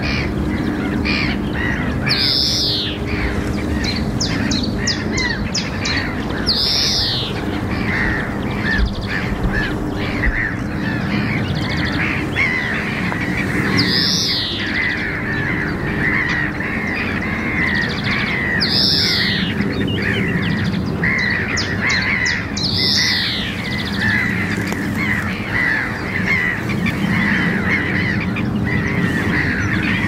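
European greenfinch calling: about five drawn-out calls that fall in pitch, spaced several seconds apart, with quick runs of high ticks in between. A steady chorus of other small birds chirps throughout.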